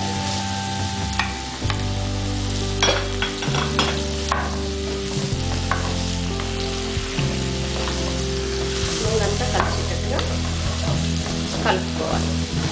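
Bottle gourd chunks sizzling in hot oil in a pan while a wooden spatula stirs them, with a few sharp knocks and scrapes of the spatula against the pan.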